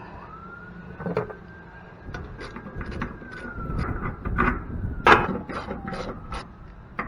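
Scattered metallic knocks and clanks of parts and tools being handled during the dismantling of a scrap press table, growing busier after about two seconds, the loudest about five seconds in. Under them a faint siren wails slowly up and down.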